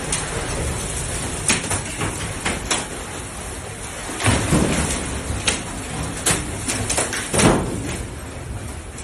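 Wind of a possible tornado blowing hard through an industrial building, with a string of loud bangs and clatters as the building is battered. The two loudest bangs come about four and a half and seven and a half seconds in.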